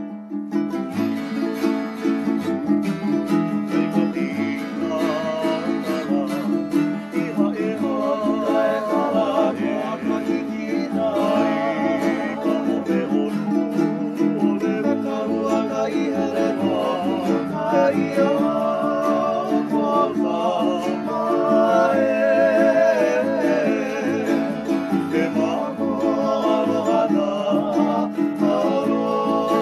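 Hawaiian-language song sung by several men together, accompanied by strummed acoustic guitar and ukulele with a plucked upright bass line.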